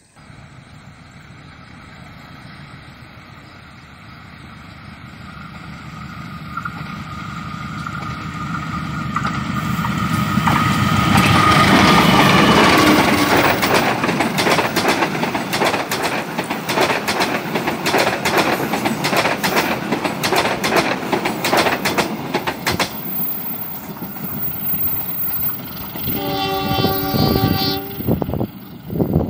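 Passenger train approaching and passing close by. A rising rumble with a high steady tone builds to its loudest about halfway through, then a fast clickety-clack of wheels over rail joints as the cars go by. A horn blast about two seconds long sounds near the end.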